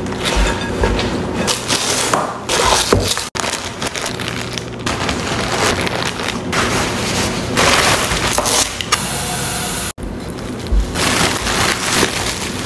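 Food-prep handling sounds: kale leaves rustled and torn, then a zip-top plastic bag lined with paper towel crinkling as it is pressed shut, then a plastic produce bag of leafy herbs crinkling. The sound breaks off abruptly twice between the parts.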